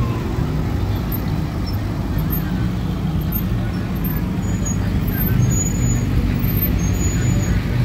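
Steady low rumble of a motor vehicle running and moving.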